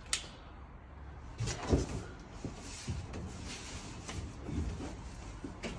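Cardboard top cap of a grand piano shipping crate being lifted and slid off by hand: cardboard scraping and rustling in several strokes, the loudest about a second and a half in, with a sharp knock just after the start and another near the end.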